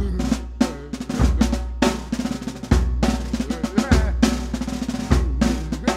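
Instrumental music break: a busy snare-drum rhythm over a heavy bass drum hit about every second and a bit, with a melody line above it.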